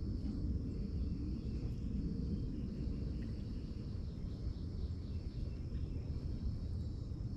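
Outdoor ambience at a creek: a steady high insect trill over an even low rumble, with a few faint short chirps.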